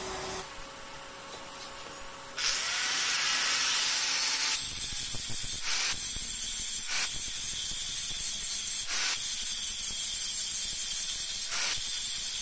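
Angle grinder grinding the end of a chisel made from steel rebar: a loud steady hiss with a high whine, starting about two seconds in, with a few short dips as the disc eases off the steel.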